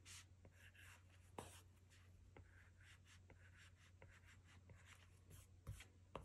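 An Apple Pencil tip on an iPad Pro's glass screen, making faint short scratchy strokes and light taps as lines are drawn, several a second.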